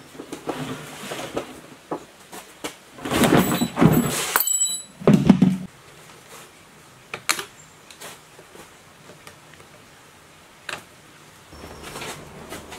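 Knocks, thuds and rustling as an old metal submersible pump and its coiled hose are handled on a wooden table, with a louder clattering scrape about three seconds in and a heavy thump just after, then a few scattered clicks.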